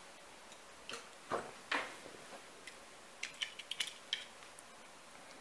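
Die-cast Lightning McQueen toy cars being handled: three soft knocks about a second in, then a quick run of light clicks as the metal cars are picked up and knock together in the hand.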